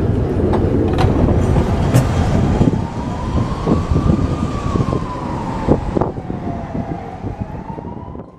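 Lisbon tram running on its rails: a steady low rumble with several sharp knocks from the wheels and track, and a whining tone that slowly rises, falls and rises again in pitch from about three seconds in. The sound fades out near the end.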